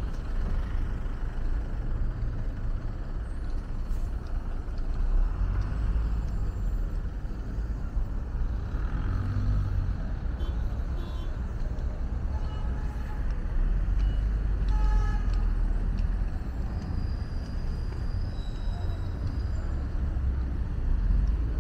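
Street traffic: motor vehicles passing with a steady low rumble, and a vehicle horn tooting briefly about twelve to fifteen seconds in.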